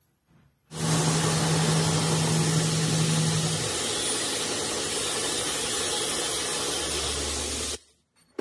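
Metal lathe running: a loud, even whirring hiss with a steady low motor hum that starts suddenly about a second in and stops abruptly near the end.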